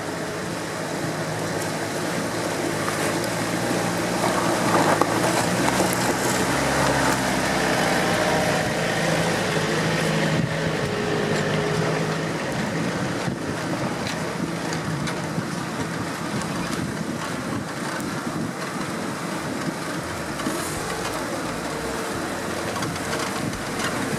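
Toyota four-wheel-drive trucks driving through a shallow river: engines running under the rush and splash of water around the wheels, with wind noise on the microphone. The engine hum is strongest in the first half as the first truck passes close.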